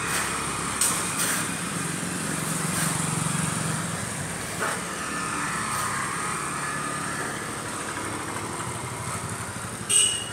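A motorcycle passing along a residential street, its small engine running and then fading, over steady street background. A brief sharp sound comes near the end.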